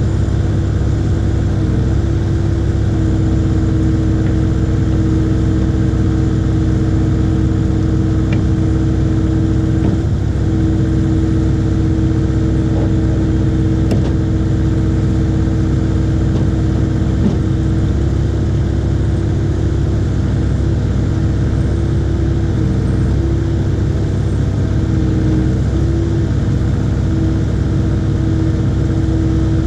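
IHI 80NX mini excavator's diesel engine running steadily at an even speed.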